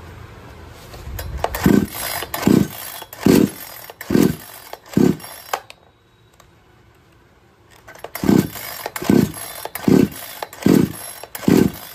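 Recoil starter of a 58cc two-stroke chainsaw being pulled in two runs of about five quick pulls, each a short cranking rasp, with a pause between the runs. The engine never catches: the saw has a no-start fault.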